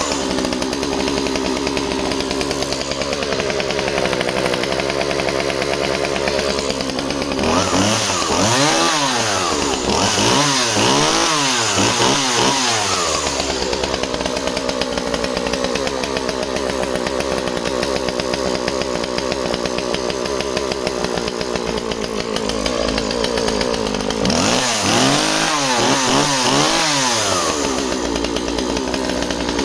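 Husqvarna 36 two-stroke chainsaw running cleanly just off choke. Its engine is revved up and down several times about eight seconds in, settles to steady running, then is revved in a second run of quick blips near the end.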